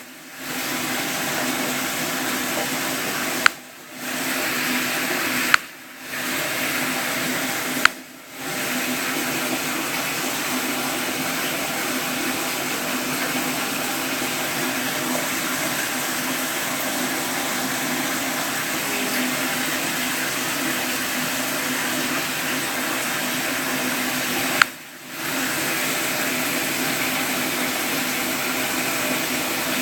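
Steady rushing water, broken five times by a sharp click followed by a drop-out of about half a second. The clicks come near the start, at about three and a half, six and eight seconds in, and again near the end.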